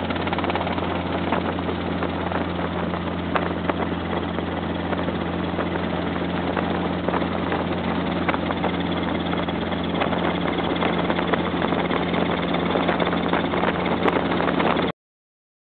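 Robinson R22 helicopter in flight, heard from inside the cabin: its four-cylinder piston engine and rotor make a steady drone with a constant low hum. It cuts off suddenly near the end.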